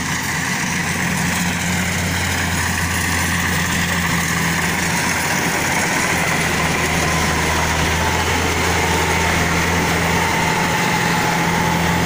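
Crawler-type rice combine harvester running steadily as it cuts and threshes rice: a constant low engine note with machinery noise over it, and a faint whine that falls slowly in pitch in the second half.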